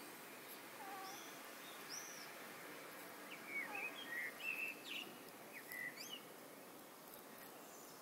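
Siamese cat making a run of short, warbling, chicken-like chirps while hunting, loudest from about three seconds in for roughly three seconds, with a few fainter high chirps before, over a steady low hiss.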